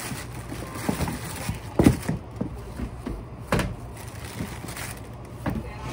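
Clear plastic bags rustling and crinkling as gloved hands handle them, with a few irregular dull knocks, the loudest about two seconds in. A steady low hum lies underneath.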